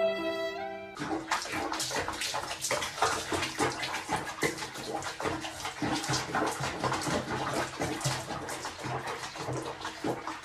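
Water splashing and sloshing in a small tub with a wet cat sitting in it, heard over background music. Held music notes end about a second in, and the water sound starts then.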